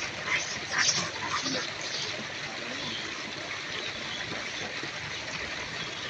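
Steady rushing, water-like background noise with a few short high-pitched calls in the first two seconds.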